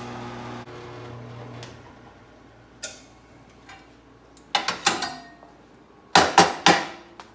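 A power tool's electric motor hums steadily, then winds down and stops within the first two seconds. After that, steel parts clank sharply: once, then two quick groups of three clanks, the last group the loudest.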